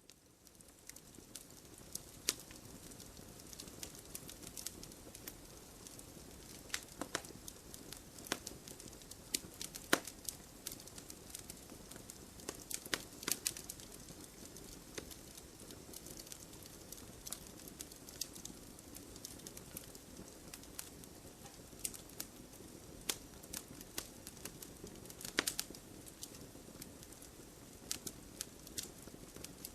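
Firewood burning: a steady soft hiss under sharp, irregular crackles and pops, the loudest pops about 2, 10, 13 and 25 seconds in. The sound fades in right at the start.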